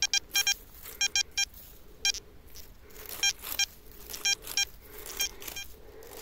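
Metal detector giving short, buzzy target beeps, repeated irregularly, some singly and some in quick clusters of two or three, as it sounds off on a buried metal target.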